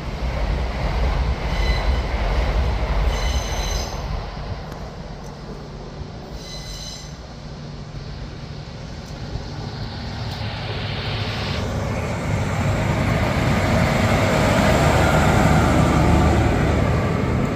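A railway engineering train rolling past with a heavy, steady rumble. High-pitched wheel squeals come about three seconds in and again about seven seconds in, and the rumble swells again in the second half.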